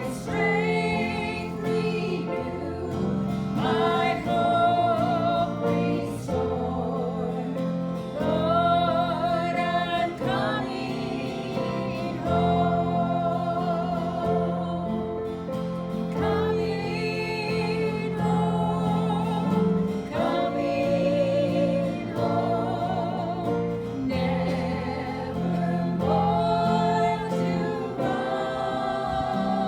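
Gospel song sung with instrumental accompaniment, held notes wavering with vibrato over steady bass notes.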